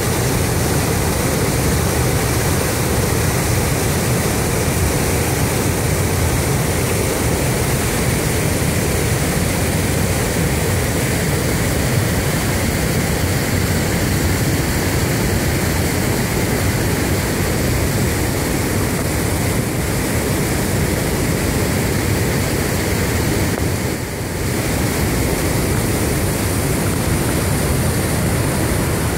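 Murrumbidgee River rushing over rock rapids: a steady, loud rush of white water, briefly softer a few seconds before the end.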